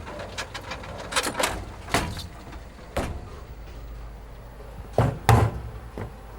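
Several sharp knocks and thumps at irregular intervals over a steady low hum, the loudest two close together about five seconds in.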